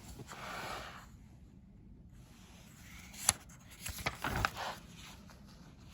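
Paper rustling and handling noises, like a book page being turned: a soft rustle at the start, a sharp click about three seconds in, and a short burst of rustling with a low bump a second later.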